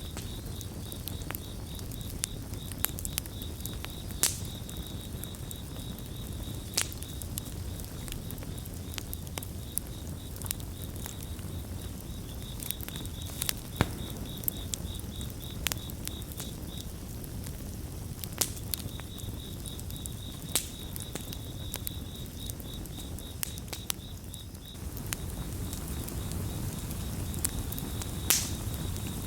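Campfire burning with a steady low rumble and sharp crackles and pops, a few of them loud. A cricket chirps in a high, evenly pulsed trill, pausing briefly a little past halfway. The fire's rumble grows a little louder near the end.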